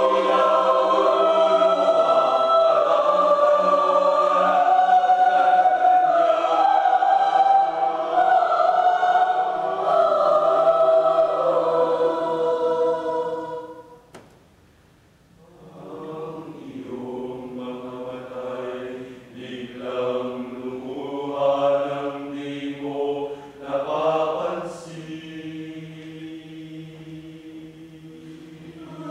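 A mixed choir of men and women singing in parts, full and loud, breaking off about halfway through into a brief pause, then coming back in more softly in swelling phrases.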